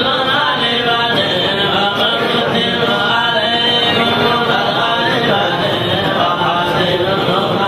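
A group of men's voices chanting together in a continuous, steady devotional chant.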